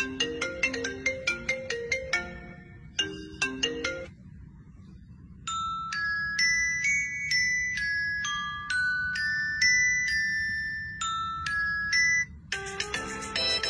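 Phone ringtone melodies: a quick marimba-like tune that stops about four seconds in, then after a short pause a higher tune of held, chiming notes, and near the end a busier tune begins.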